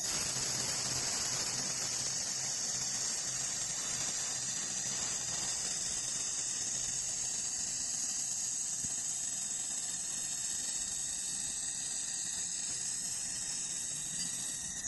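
Handheld fiber laser welder running a continuous seam weld on sheet steel: a steady, high-pitched hiss and sizzle that starts abruptly as the beam fires and cuts off when it stops near the end.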